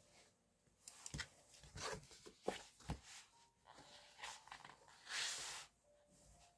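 Thick sheet of drawing paper being slid and turned on a desk: a few soft knocks and rustling swishes, the longest swish near the end.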